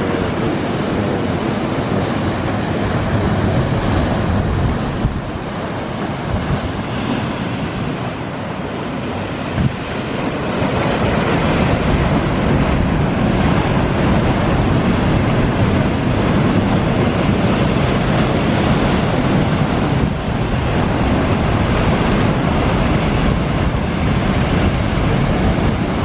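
Ocean surf breaking on a rocky shore: a steady rush of crashing waves and churning white water, growing louder about ten seconds in.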